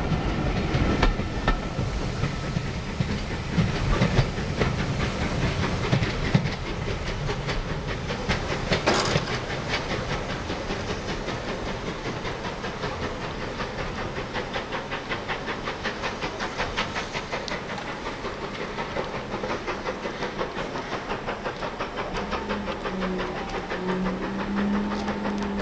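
Steam-hauled passenger train of BR Standard Class 4 2-6-0 No 76069 pulling away: the coaches rumble and clatter over the rail joints close by, then fade into a quick, even rhythm of beats with a hiss of steam as the train draws off. A short sharp sound comes about nine seconds in, and a steady low hum comes in near the end.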